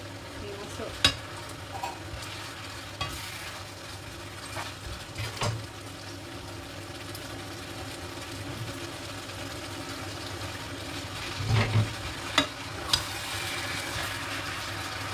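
Vegetables sizzling as they are stir-fried in a frying pan, with a spatula scraping through them. A few sharp taps of the spatula against the pan stand out, the heaviest knock coming about two thirds of the way in.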